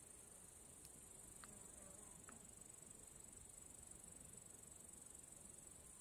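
Faint, steady high-pitched chirring of insects, with a few faint ticks in the first half.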